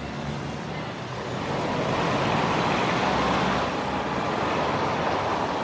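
City street traffic noise, a steady rush of passing vehicles that swells about a second and a half in.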